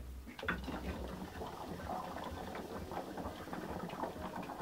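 Hookah water bubbling and gurgling as smoke is drawn through the hose in one long draw. It starts about half a second in.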